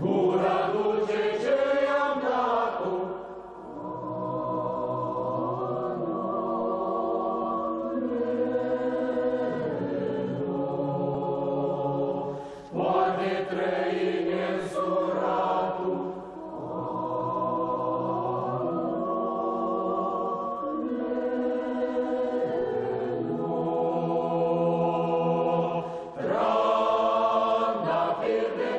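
Mixed choir of women's and men's voices singing in parts, holding long notes in phrases broken by short pauses for breath.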